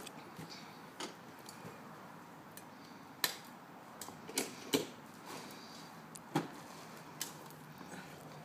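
A manual wheelchair being manoeuvred: faint, scattered clicks and knocks, with a handful of sharper ones from about three seconds in.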